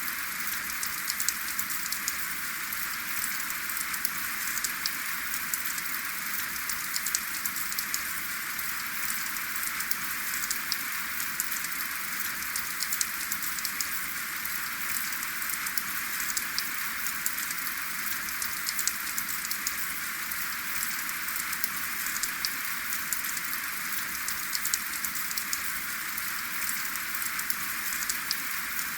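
Steady rain: a constant hiss with many close, sharp ticks of individual drops striking a surface.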